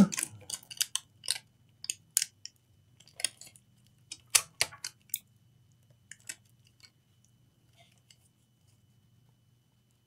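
Scattered light clicks and taps of hand tools working over a laptop circuit board during fault-finding, thinning out after about five seconds, over a faint steady low hum.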